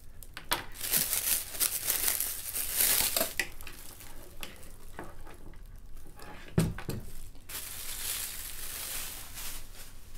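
Clear plastic wrap crinkling and tearing as it is pulled off by hand, in two spells, with a single thump about two-thirds of the way through.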